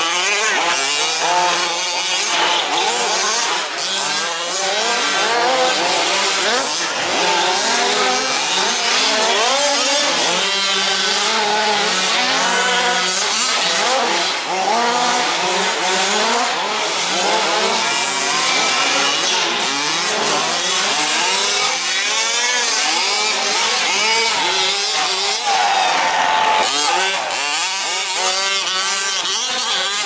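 Several 1/5-scale petrol RC trucks racing, their small two-stroke engines revving up and down and overlapping without a break. About 26 seconds in, one engine revs up loudly close by.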